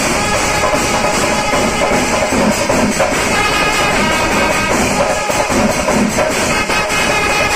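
Kerala temple melam, the Panchari-style ensemble of chenda drums and elathalam hand cymbals, playing loud and without a break. Dense, fast drum strokes and cymbal clashes run under steady held tones.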